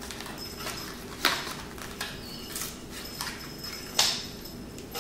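Stiff plastic-and-card retail package being pried and pulled open by hand: crinkling and crackling, with sharp cracks a little over a second in and, loudest, about four seconds in.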